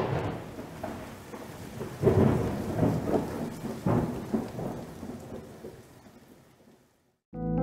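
Thunderstorm sound effect: steady rain with rolls of thunder, loudest at the start and again about two and four seconds in, fading away near the end. A piano chord comes in just at the close.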